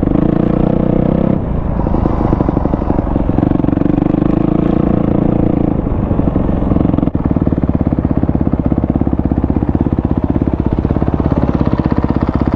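Kawasaki KX250F dirt bike's 250 cc single-cylinder four-stroke engine, fitted with a Pro Circuit exhaust, running at changing part-throttle revs, then settling to a steady, evenly pulsing idle about seven seconds in.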